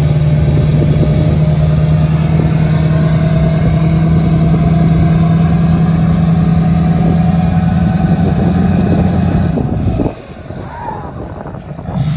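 Pickup's turbo-diesel engine held at full throttle under heavy load, building boost, a steady drone with a high turbo whistle. About ten seconds in the throttle comes off, the engine drops away and the turbo whistle falls in pitch.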